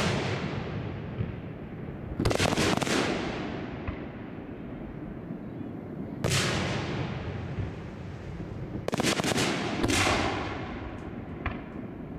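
Aerial firework shells bursting overhead: about five booms a few seconds apart, some doubled into quick clusters, each followed by a long rolling echo that fades away.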